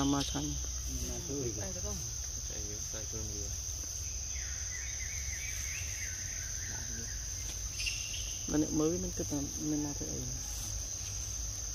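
Insects keep up a steady, high-pitched drone, with people's voices talking in the background near the start and again about two-thirds of the way through.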